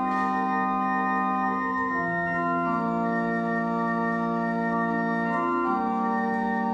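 Pipe organ playing slow, sustained chords; the chord changes a few times, with the bass moving down about two seconds in and up again near the end.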